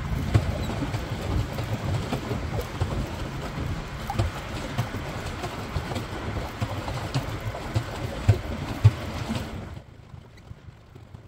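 Water lapping and slapping against a small paddleboat's hull, with wind buffeting the microphone in irregular low thumps. It drops away sharply near the end.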